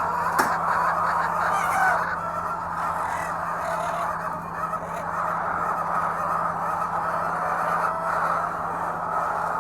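A large flock of laying hens calling all at once: a continuous din of many overlapping clucks and squawks, with a steady low hum underneath and a single sharp click about half a second in.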